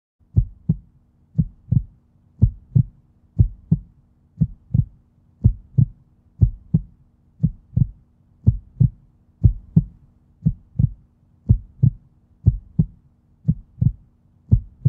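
A heartbeat sound effect: low double thumps, lub-dub, about once a second, over a faint steady hum.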